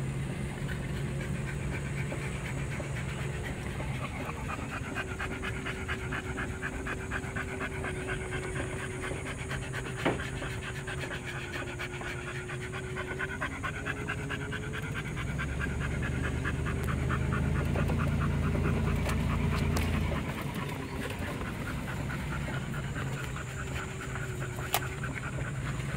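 A dog panting fast and steadily inside a moving vehicle, over the low drone of the engine and road noise, which swells for a few seconds in the middle. A couple of sharp clicks.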